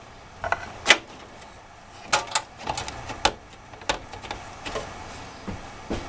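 Motherboard being lowered into a steel computer case and shifted into place, with a scattered run of light clicks and knocks as the board and its parts touch the metal chassis.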